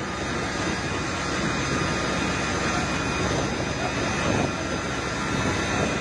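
Steady, even roar of a fully burning building under hose streams, with no break in it.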